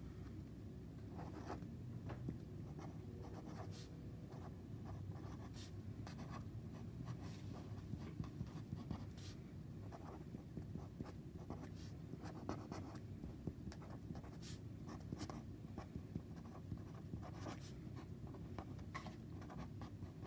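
Felt-tip pen writing on paper: faint, irregular short scratches of the tip as letters are written, over a steady low hum.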